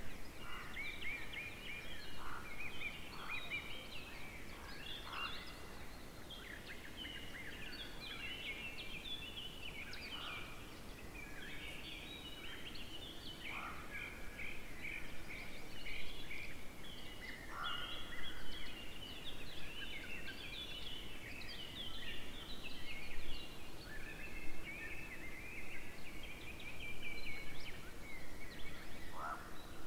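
Several songbirds singing at once in a continuous chorus of varied phrases, with occasional falling notes. A faint steady low hum runs underneath from about twelve seconds in.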